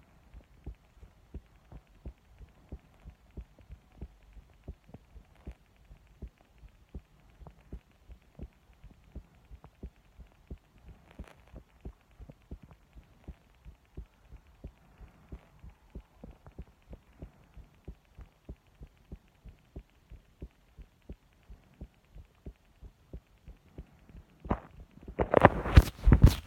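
Human heartbeat picked up close on the chest, a steady, even run of soft low thuds, about two and a half a second. Near the end a burst of much louder sharp knocks covers it.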